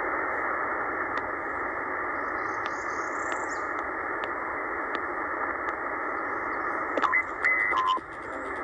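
Shortwave band static hissing from a Tecsun PL-990x's speaker in upper sideband mode, narrow and thin-sounding, as the receiver is tuned down the band around 13.8 MHz. Near the end a couple of brief whistling tones come through as the tuning passes signals.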